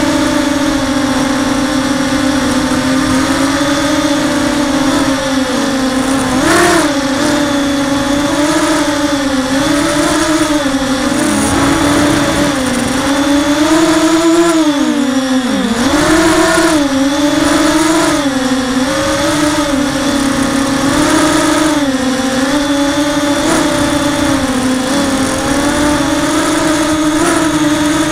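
Blackout Mini-H FPV quadcopter's brushless motors and propellers whining, heard through its onboard camera, the pitch rising and falling continually with the throttle. About halfway through the pitch drops sharply, then climbs back.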